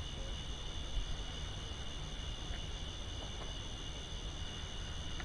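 Steady night chorus of crickets, a continuous high trill, over a low rumble.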